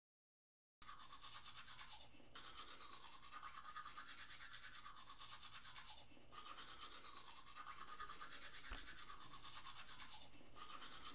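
Manual toothbrush scrubbing teeth: a fast, even rasp of brush strokes that starts about a second in, broken by brief pauses about every four seconds.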